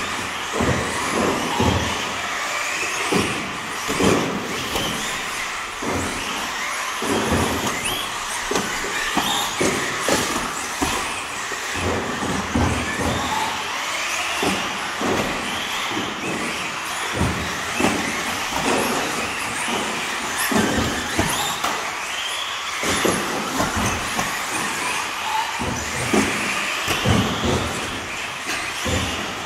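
Electric RC off-road buggies, among them a Schumacher Cat L1 with a brushless motor, running laps on a carpet track. The motors whine up and down in pitch with the throttle, and short knocks and thumps come from the cars landing and hitting the track.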